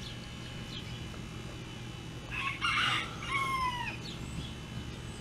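A rooster crowing once, a little over two seconds in: a harsh opening followed by a drawn-out call that bends and falls at the end.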